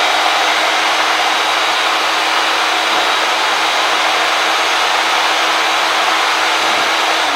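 Milwaukee 6230 deep-cut portable band saw (Portaband) running steadily with no load, its motor and blade giving a constant hum and whir. It is switched off at the very end.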